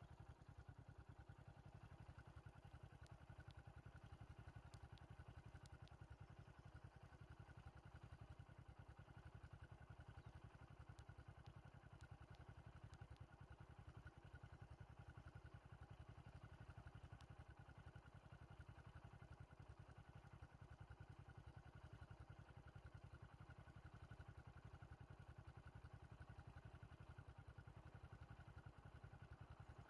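Faint, steady low rumble of an idling vehicle engine.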